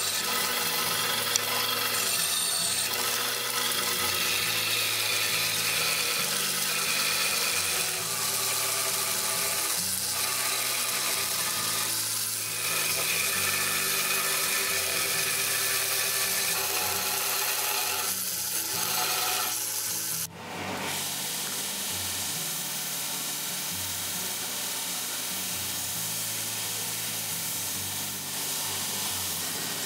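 Band saw running and cutting along a wooden strip. About two-thirds of the way through it gives way abruptly to a vertical belt sander running steadily as a curved wooden piece is sanded against the belt.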